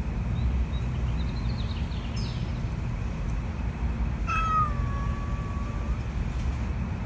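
A domestic cat gives one long, drawn-out yowl about four seconds in, dipping slightly in pitch and then holding steady for nearly two seconds: a hostile cry at another cat in a standoff. A steady low rumble runs underneath.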